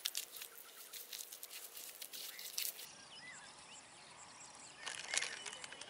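Hands mixing sticky palm-fruit pulp and rice flour into dough in a steel bowl, a quick run of wet clicks and smacks. About three seconds in this gives way to faint rural outdoor ambience with scattered small bird chirps.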